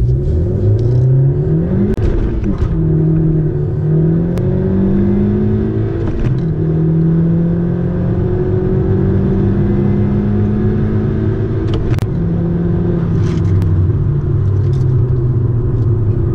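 2017 Honda Civic EX-T's 1.5-litre turbocharged four-cylinder accelerating hard, heard from inside the cabin: the engine note climbs and drops back at each upshift of the six-speed manual, about two, four and six seconds in. It then pulls steadily in a higher gear and falls back about twelve seconds in as the throttle is lifted.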